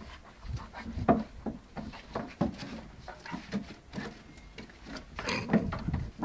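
A golden retriever and a Jack Russell puppy play-fighting on wooden decking: irregular scuffles and knocks of paws and bodies on the boards, with a louder flurry about five seconds in.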